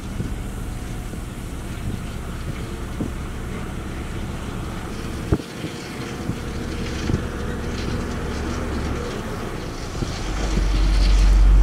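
Heavy diesel truck engine running steadily while the dump truck's hydraulic tipper bed rises, with a few sharp clicks or knocks along the way. About ten seconds in, a louder, deeper engine rumble builds up from a bulldozer coming in.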